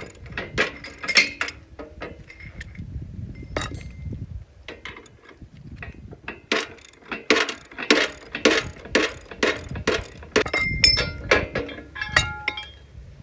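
Steel brackets, bolts and washers clinking and knocking together as they are handled and fitted. There is a run of quick, fairly regular clinks in the middle, and a few short metallic rings near the end.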